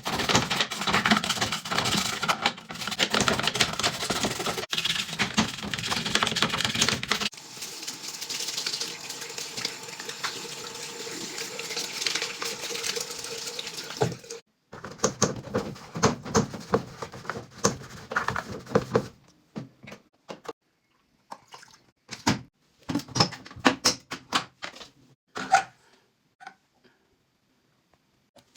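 Hands-on cleaning of a washing machine: busy scrubbing and rubbing, then a steady stretch of running water. After that come more scrubbing and handling clicks, then a few scattered sharp taps.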